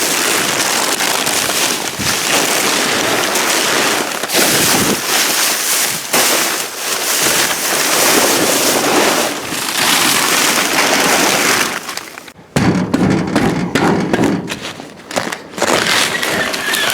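Plastic garbage bag rustling and crinkling loudly as it is handled and rummaged through. About twelve seconds in the sound turns rougher and lower, with short gaps.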